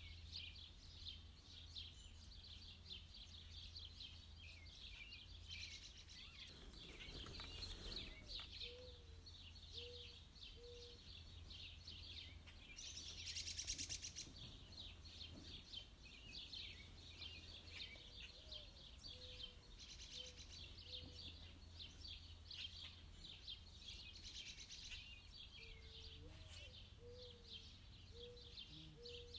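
Faint, continuous high-pitched chirping and peeping of birds, a little louder about halfway through, with a few short runs of lower calls now and then. A steady low hum runs underneath.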